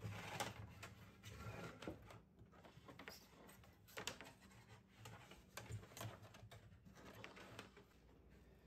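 Near silence with faint, scattered taps and rustles of a cable being handled and pulled through by hand.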